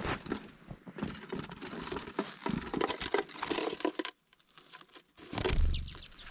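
Rustling and many small clicks of hands working a bird feeder open to free a bird trapped inside, with a short low bump near the end.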